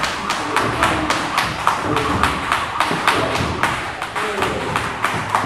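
Quick, evenly spaced sharp slaps or impacts, about three to four a second, from training in a boxing gym, with voices in the background.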